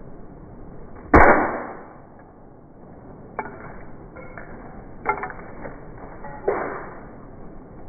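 A sledgehammer smashing objects: one heavy blow about a second in, then several lighter knocks and clinks, some with a short ringing tone.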